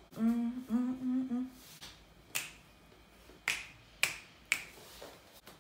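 A woman's voice gives a few short, steadily held notes, then four sharp finger snaps: one, and about a second later three more about half a second apart.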